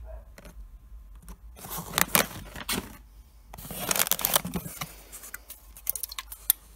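Plastic snack packaging crinkling and rustling as items are shifted around in a cardboard box, in two bursts about two and four seconds in, followed by a few light knocks near the end.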